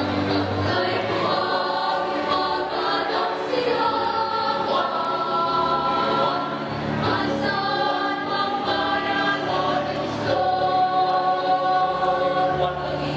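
Mixed choir of teenage girls and boys singing in harmony, with long held notes that change every second or two.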